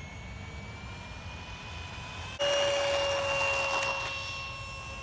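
Electric ducted fan of an RC F/A-18 model jet whining as it spools up, the pitch rising slowly. About two and a half seconds in the whine jumps abruptly louder, then holds and sags slightly in pitch.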